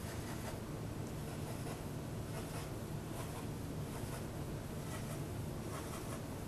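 Felt-tip marker dabbing dots onto paper: a series of short, soft taps and scratches, against a low steady hum.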